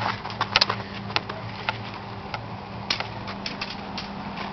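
Irregular sharp clicks and knocks, roughly two a second, the sharpest about half a second in, over a steady low hum and hiss.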